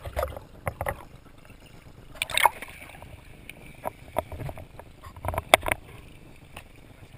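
Water splashing and sloshing around a kayak as it is rolled back upright after a capsize (an Eskimo roll), then paddle strokes in the water. It comes as a series of separate sharp splashes, the loudest about two and a half and five and a half seconds in.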